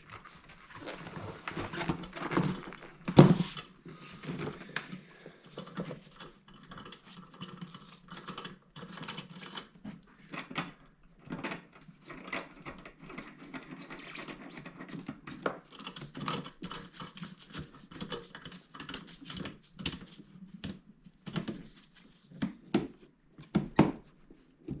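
Handling noise from hands working on a motorcycle saddlebag and its light mount: irregular clicks, taps and rubbing, with a sharp knock about three seconds in.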